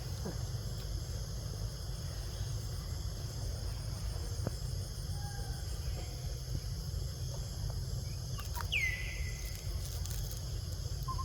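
Steady high insect buzzing, like cicadas or crickets, over a constant low rumble. About nine seconds in comes one short, high squeak that slides down in pitch and then levels off.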